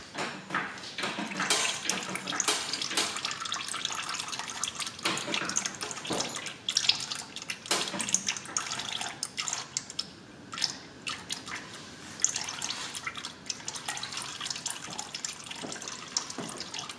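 Automatic transmission fluid draining from the transaxle drain-plug hole of a 2010 Ford Escape in a thin stream, splattering and dripping into a drain pan below with an irregular patter of small splashes. This is the old fluid being drained off during a transmission drain and fill.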